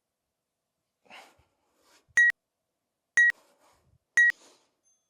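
Workout interval timer giving three short, high countdown beeps, one a second, marking the last seconds of a timed exercise interval.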